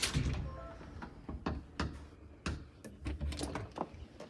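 Irregular light clicks and taps, with low thumps of handling noise underneath.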